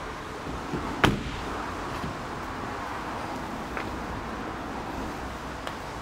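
A Mercedes-Benz E350 coupé's door shut with one loud thud about a second in, over a steady low background hum, with a couple of faint clicks later.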